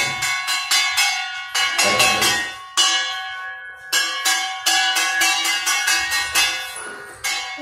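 Steel plate struck rapidly again and again with a spoon as a makeshift school bell, each stroke ringing on with a metallic clang.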